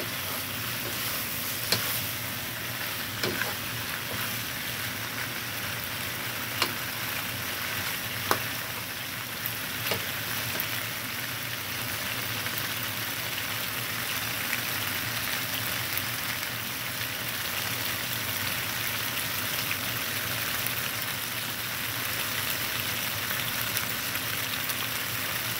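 Penne with shredded chicken and vegetables sizzling steadily in a frying pan. A few sharp clicks of the stirring spoon against the pan come in the first ten seconds.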